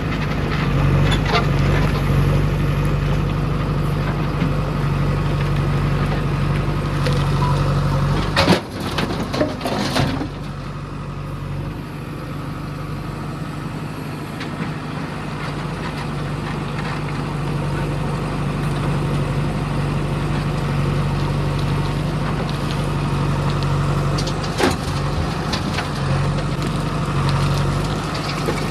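Heavy diesel engine running steadily, with a sharp clank about eight and a half seconds in and another about ten seconds in.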